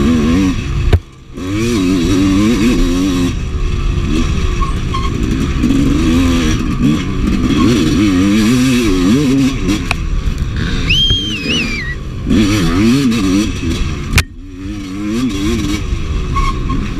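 Honda CR250 two-stroke single revving up and down as it is ridden hard over a rough trail, its pitch rising and falling with the throttle. The throttle is chopped briefly about a second in and again about three-quarters of the way through.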